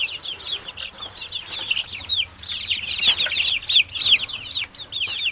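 Chicks peeping without a break, many short high peeps overlapping, each falling in pitch, several a second.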